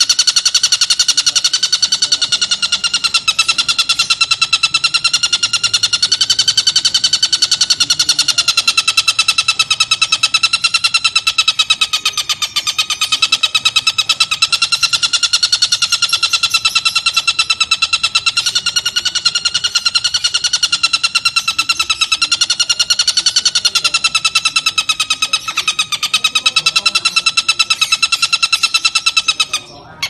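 Oriental dollarbird giving its long, unbroken cackling call, a rapid rattling trill whose pitch wavers slowly, with a short break near the end.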